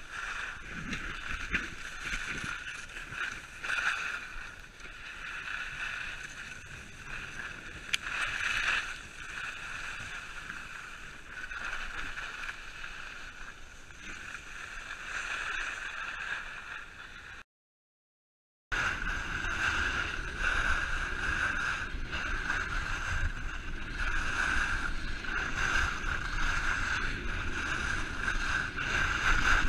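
Skis sliding and scraping over packed snow, with wind rushing over an action camera. The sound drops out briefly a little past halfway and comes back louder, with more wind rumble.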